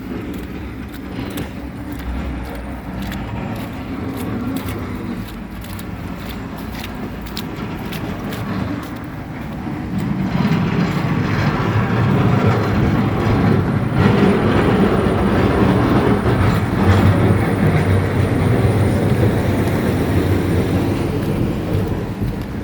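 A motor vehicle's steady low rumble, growing louder about ten seconds in and holding.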